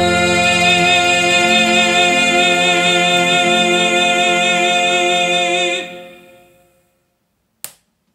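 Operatic tenor voice holding the song's final note with a wide vibrato over a sustained backing chord. The note ends about six seconds in and fades to silence, and a single short click comes near the end.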